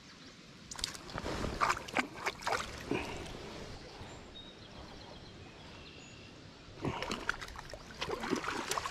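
Water splashing and sloshing in two spells of irregular splashes, about a second in and again near the end, over the steady rush of a stream.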